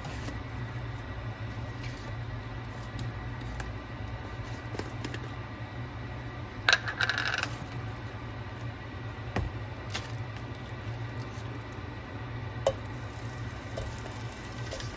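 Over-the-range microwave's vent fan running with a steady low hum. About two thirds of the way through comes a sharp clink with a short ring, then a couple of lighter clicks; near the end a faint hiss rises as raw steak strips go into the hot oil.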